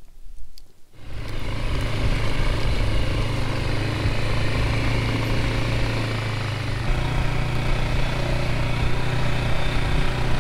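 ATV engine running steadily while riding along a dirt trail, starting abruptly about a second in. Its pitch steps up slightly about seven seconds in.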